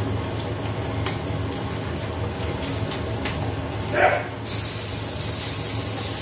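Fish frying in oil in a pan, turned with a spatula: light taps and scrapes, then a short squeak about four seconds in, followed by a strong sizzle that sets in and keeps going. A steady low hum runs underneath.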